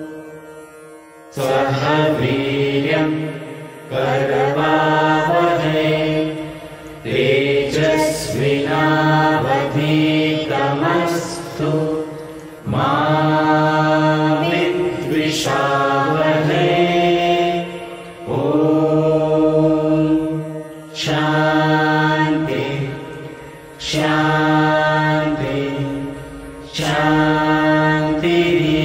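Mixed group of men's and women's voices chanting a devotional prayer together in unison. The chant comes in melodic phrases of about three to five seconds, with short breaks for breath between them, over a steady low hum.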